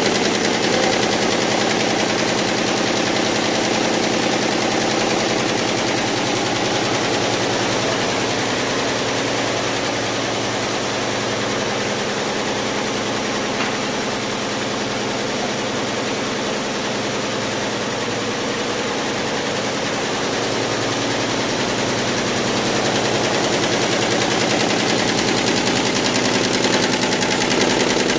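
YBD164 multi-needle quilting embroidery machine stitching at speed: a steady, very rapid mechanical clatter of needle strokes, dipping slightly in loudness midway and picking up again near the end.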